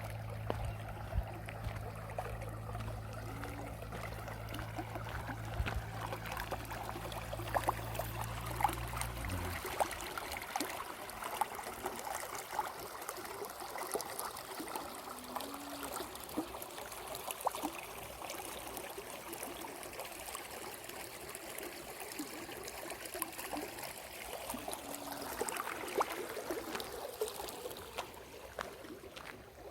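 Water trickling and splashing along a rice-paddy channel, with many small sharp splashes. A low steady mechanical hum runs underneath and stops suddenly about a third of the way in.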